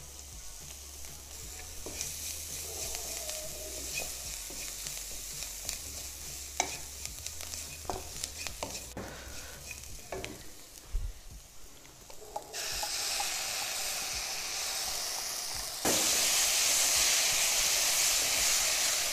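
Wooden spatula stirring and scraping chopped onions and spices frying in oil in a kadai, with a light sizzle and scattered clicks of the spatula on the pan. In the last third the sizzle jumps louder twice as wet onion-tomato paste goes into the hot pan.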